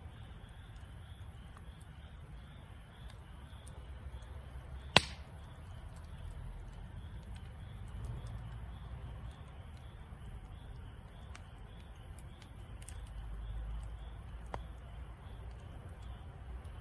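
Wood fire burning in a Snow Peak fire pit, crackling with small scattered ticks over a low rumble, and one loud sharp pop about five seconds in and a smaller one near the end.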